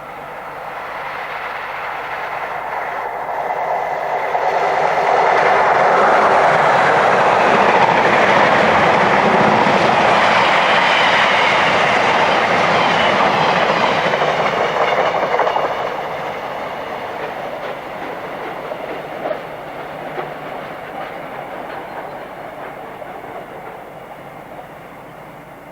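Electric locomotive-hauled express train passing at speed on the main line. The wheel-and-rail noise builds steadily and stays loud for about ten seconds. It drops off sharply about sixteen seconds in as the train passes, then fades away.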